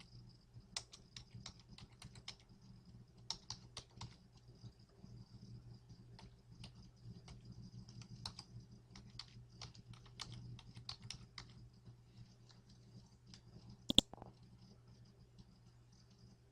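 Keys clicking irregularly as someone types on a keyboard, entering an email address, with one sharper, louder click about 14 seconds in. A low steady hum lies underneath.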